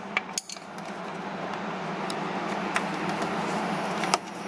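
A few sharp metallic clicks as a flathead screwdriver pries at the spring clips holding the charge pipes to the intercooler, over a steady background hum and hiss.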